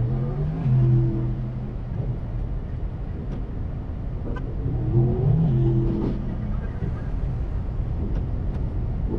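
Car engines idling with a steady low rumble, heard from inside a car in a drag-race lineup. An engine revs briefly twice: once just after the start and again about five seconds in.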